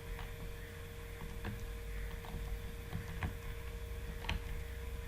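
Computer keyboard keys clicking now and then, about half a dozen soft taps at irregular spacing, over a faint steady electrical hum.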